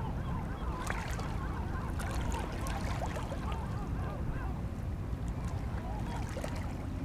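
Seaside ambience on a rocky shore: a low rumble of wind and water, small splashes of water against the rocks, and many short overlapping calls throughout.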